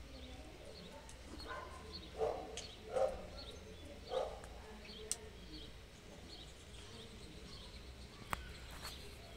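Short animal calls, about four in quick succession in the first half, over a faint high chirping that repeats about twice a second; two sharp clicks come later.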